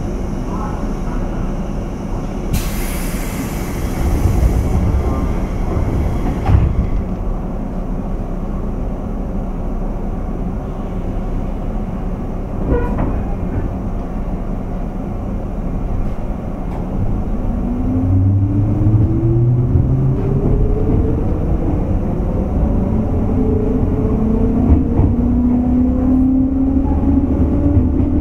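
JR West 201 series electric train heard from inside its motor car: a steady rumble, a hiss lasting about four seconds a few seconds in and a knock near the middle, then from about two-thirds through the chopper-controlled traction motors whine, rising in pitch as the train accelerates.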